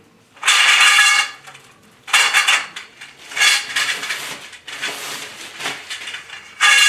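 Steel tent-frame tubes clanking against one another as they are handled and sorted, in about five separate clatters, each ringing briefly with a metallic tone.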